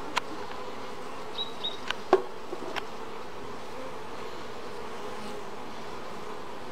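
Honeybees humming steadily around an open frameless wooden hive. A few sharp wooden knocks come in the first three seconds, the loudest just after two seconds in, and two brief high chirps sound about a second and a half in.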